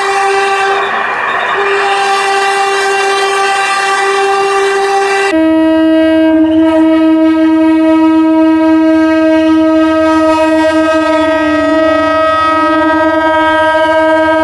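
Locomotive horn sounding one long, unbroken, loud chord. About five seconds in it switches abruptly to a different, lower horn chord, with a low engine rumble underneath.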